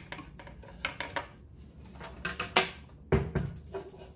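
Portable drafting board's folding legs being pulled out and locked, a run of light clicks and clacks, then heavier knocks about three seconds in as the board is set down on the desk.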